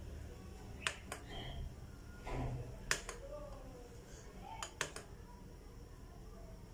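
Metal spoon stirring cake batter in a bowl and clicking against the bowl's side: three pairs of sharp ticks, roughly two seconds apart.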